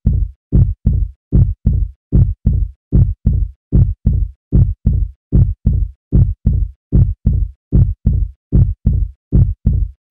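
Heartbeat sound effect: a steady lub-dub double thump, deep and bassy, repeating about once every 0.8 seconds.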